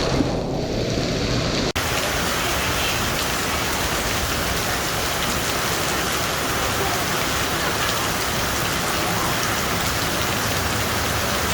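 Heavy rain pouring steadily, a dense even hiss. About two seconds in the sound drops out for an instant and comes back slightly brighter, as at a cut in the recording.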